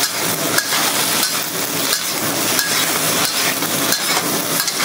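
Baby bok choy sizzling in a hot wok just after soy and oyster sauce go in, stirred with a wok spatula that knocks and scrapes against the pan at a regular pace, about every half second.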